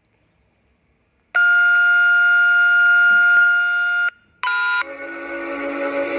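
Emergency alert system alarm played back: about a second in, a loud steady electronic alert tone sounds for nearly three seconds and cuts off. After a short gap, a brief higher chord-like beep leads into a lower, sustained droning alarm sound.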